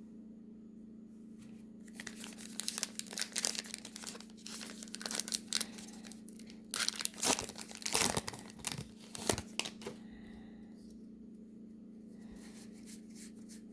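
A baseball card pack wrapper being torn open and crinkled in irregular bursts for several seconds, over a steady low hum.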